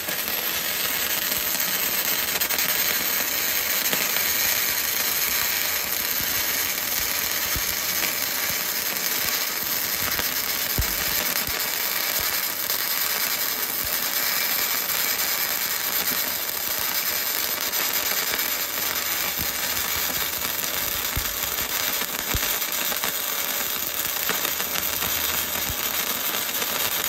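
Flux-core MIG welding arc from a YesWelder MIG-205DS Pro, laying a continuous bead on 1/8-inch steel plate with 0.030 flux-core wire: a steady crackling sizzle without a break, stopping abruptly at the end as the trigger is released.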